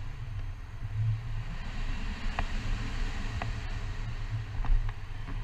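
Wind rushing over the camera microphone in paragliding flight: a low, gusty rumble with a faint hiss, swelling most about three-quarters of the way through, and a few faint clicks.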